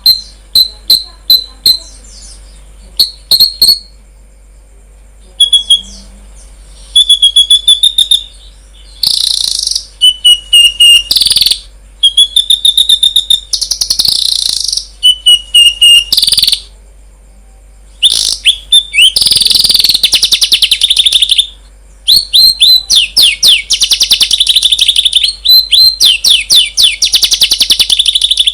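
Songbirds singing: phrases of rapid repeated chirps and whistled notes, separated by short pauses, with a long unbroken run of fast notes near the end.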